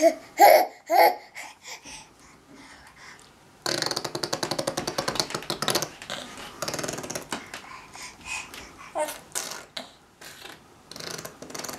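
A baby blowing raspberries with his mouth pressed on a wooden crib rail: a fast, buzzing lip trill starting about four seconds in and lasting about two seconds, followed by shorter buzzes. Two short laughs come near the start.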